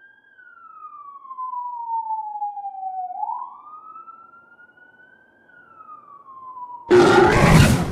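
An emergency vehicle siren wailing slowly, its pitch falling, rising and falling again. Near the end a sudden loud harsh noise breaks in over it.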